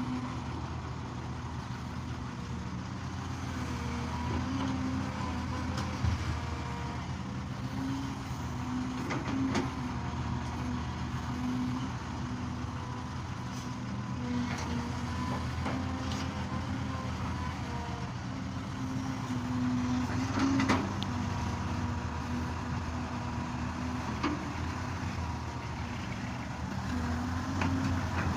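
Excavator's diesel engine running steadily, with a whine that rises and falls as the hydraulics work and a few sharp knocks scattered through it.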